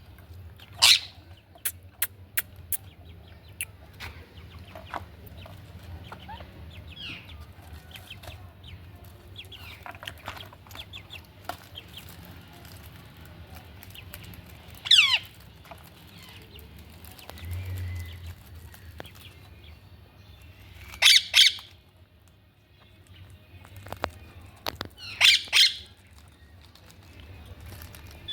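Indian ringneck parakeet giving loud, shrill squawks in short bursts: one about a second in, a single falling call midway, then two quick pairs near the end, with a few sharp clicks early on.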